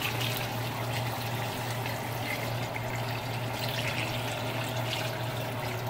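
Water poured steadily from a jug into a pot of simmering stew, a continuous pouring and splashing into liquid. A steady low hum runs underneath.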